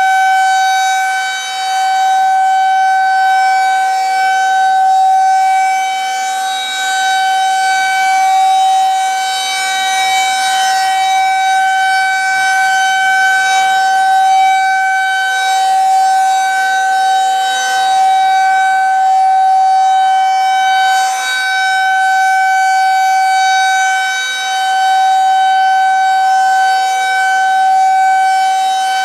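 Federal Signal outdoor warning siren sounding a long, steady single tone at full power, its loudness swelling and dipping every few seconds. It is the annual full test of a nuclear power plant's emergency warning siren.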